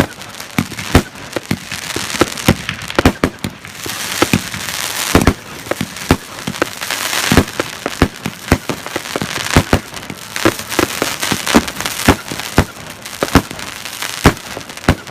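Burning fireworks battery (cake) going off erratically: sharp bangs at irregular intervals, one to several a second, over continuous crackling and hissing.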